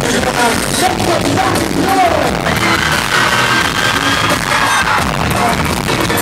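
Loud live electronic pop music through a concert PA, with a voice singing or calling over it, heard from inside the crowd.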